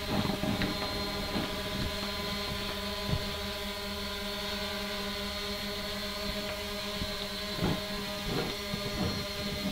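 3DR Iris+ quadcopter's motors and propellers humming steadily in a hover, one even multi-toned drone, with a few brief rushing noises in the first second and again near the end.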